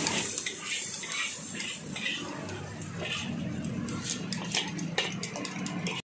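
Metal spatula scraping and clinking against a steel wok while fried rice is stirred. The short clicks come thicker in the second half.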